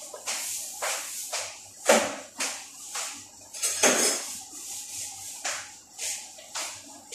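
Rolling pin working flatbread dough on a stainless steel worktable: repeated knocks and scrapes, about two a second.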